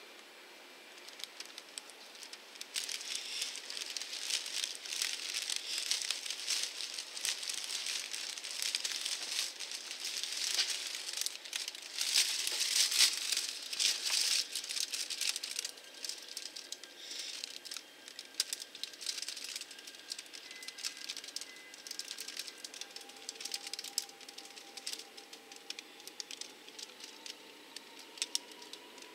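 Rain pattering and crackling against window glass, heavy for the first half and lighter after.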